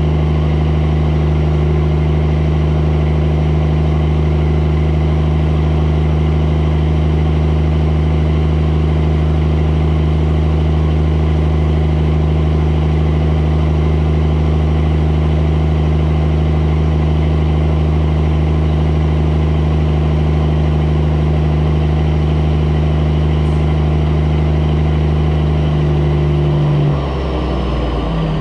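Mack semi truck's diesel engine running steadily under way, a loud even drone. Near the end the engine note breaks off and drops.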